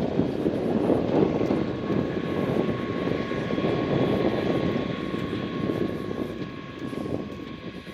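A motor's drone with a faint steady whine over it, gradually fading away toward the end.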